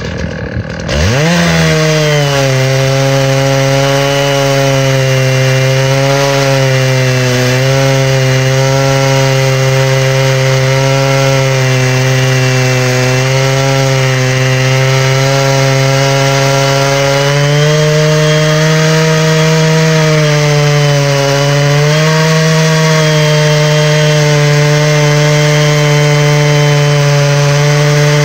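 Stihl 660 two-stroke chainsaw on a Granberg chainsaw mill revving up about a second in, then running at full throttle under load as its 36-inch bar and ripping chain cut lengthwise through green hickory. The engine note sags slightly a few times as the saw is worked hard.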